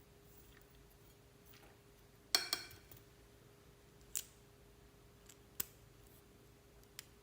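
Hard small objects being handled: a short cluster of sharp clicks with a brief ringing clink a little over two seconds in, then three single clicks spaced about a second and a half apart, over a faint steady hum.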